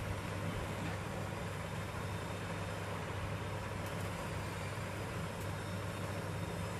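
Hot air rework gun blowing steadily onto a phone motherboard: a constant airy hiss over a low hum, with a few faint ticks. The hot air is melting the solder under an IC so it can be lifted off.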